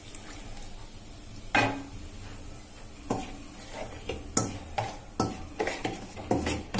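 Oil poured from a steel pan into a steel bowl of spice paste, then a steel spoon stirring the paste and clinking and scraping against the bowl, with about a dozen sharp clinks, coming faster in the second half.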